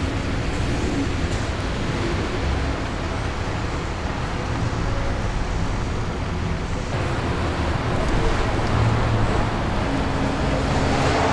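Steady street traffic noise of passing cars, swelling a little about eight seconds in.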